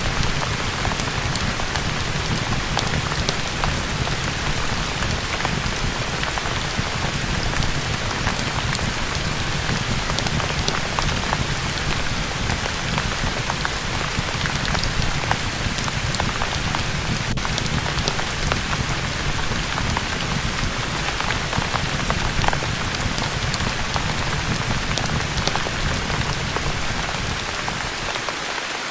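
Steady rain falling: an even hiss with many small scattered ticks of drops.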